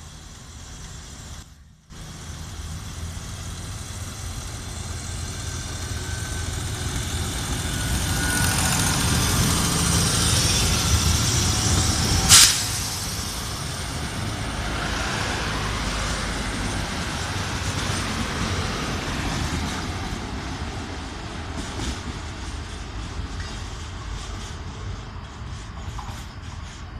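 Diesel multiple unit trains running through a station: the low rumble of diesel engines and wheels on rail builds to a peak as a train passes close, about ten seconds in, then slowly fades. A single sudden sharp noise cuts through near the peak, a little after twelve seconds.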